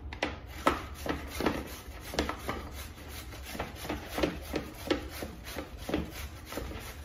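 Head of raw cauliflower being scraped down a metal box grater, shredding it: a rasping scrape repeated about two to three strokes a second.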